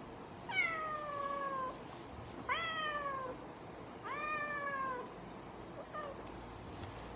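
A tabby-and-white cat meowing three times, each call about a second long and falling in pitch.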